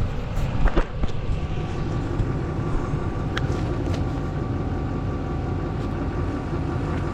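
Chevrolet K3500 pickup's Duramax V8 turbo-diesel idling steadily, with a few sharp knocks just under a second in.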